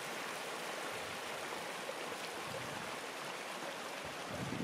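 Mountain creek swollen with spring snowmelt, its water rushing steadily over boulders.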